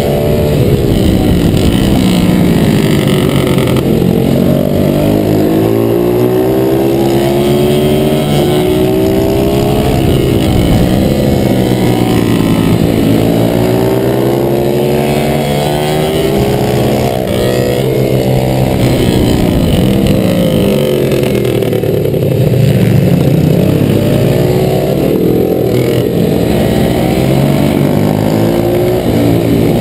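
Pit bike's single-cylinder YX140 four-stroke engine revving hard, heard from on board: the pitch climbs and drops back over and over as the throttle is opened and closed through the corners.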